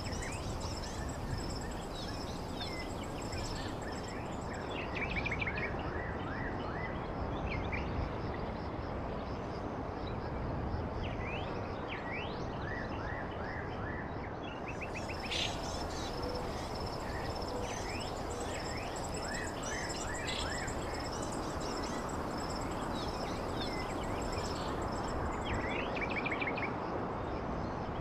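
Outdoor ambience: a steady rushing noise with many short bird chirps and a high, steady insect drone that drops out briefly a few times.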